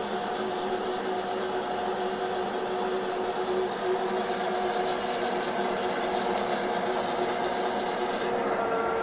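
Forg BV20L bench lathe running steadily with a steady whine over a hiss, as the tool takes an automatic facing cut on a flange with a motor-driven power cross-feed. About eight seconds in, the whine steps up in pitch and the hiss grows louder.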